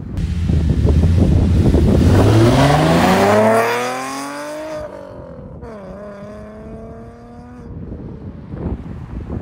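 2010 Camaro's 3.6-litre V6 with longtube headers, high-flow cats and an aftermarket axle-back exhaust, accelerating hard away from a standstill. The revs climb, then about five and a half seconds in the pitch drops for an upshift and climbs again as the car pulls away and fades.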